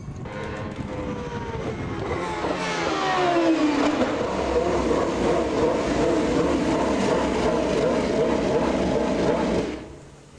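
Williams-Renault Formula 1 car's V10 engine at high revs. Its pitch falls over the first few seconds as the car passes and pulls away, then it runs loud and steady until it cuts off suddenly near the end.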